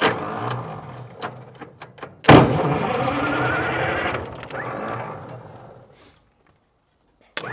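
Old diesel engine being cranked over: mechanical clatter at first, then about two seconds in a sudden loud burst as it turns over and fires, holding for a couple of seconds before dying away.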